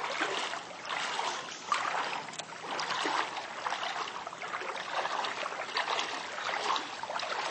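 Two people wading through shin-deep floodwater: a steady run of irregular splashes and sloshes as feet push through the water.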